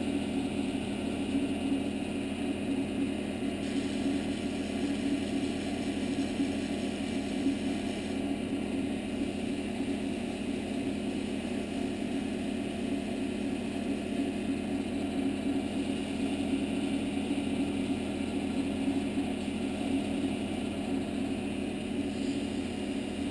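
Wood lathe running steadily, a constant motor hum, while sandpaper is held against the spinning workpiece.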